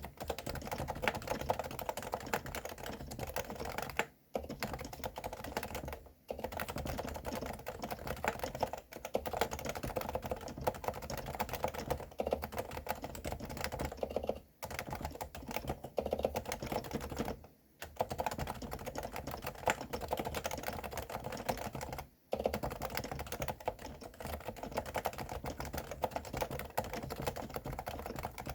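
Continuous fast typing on a Realforce R2 Silenced keyboard with 45 g Topre electrostatic capacitive switches: a dense stream of muted keystrokes, broken by a few short pauses.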